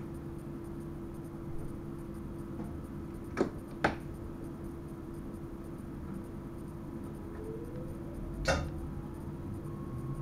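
Train driver's cab running with a steady hum and a constant low tone. Two sharp clicks come about a third of the way in and another near the end. In the last few seconds a whine rises in pitch, typical of the traction motors as the train picks up speed.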